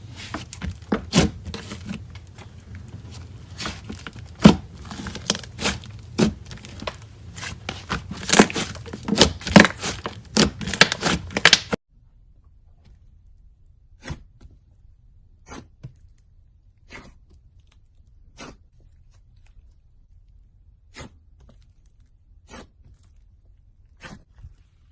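Slime worked by hand, giving dense sticky crackles and pops. About halfway through the background suddenly drops and only single pops follow, roughly one every second or two.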